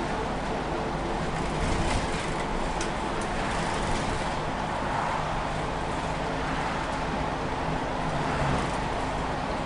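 Inside a moving city bus: steady diesel engine and road noise while driving, with a few faint clicks about two to three seconds in.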